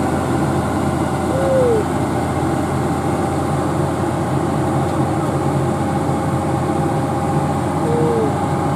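Komatsu PC200 hydraulic excavator's diesel engine running steadily under load, with a steady whine over it, as it lifts an overturned truck back onto its wheels.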